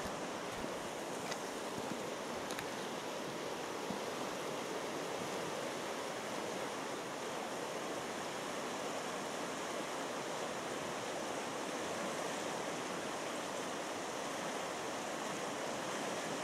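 Steady rush of a shallow river running over gravel and small riffles.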